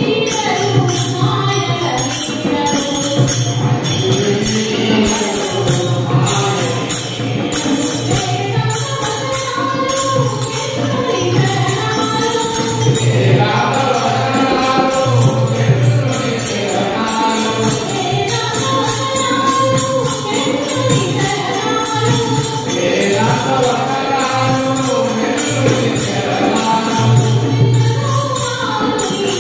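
Women singing a Krishna bhajan: a lead voice through a microphone, with the group singing along over a steady percussion beat.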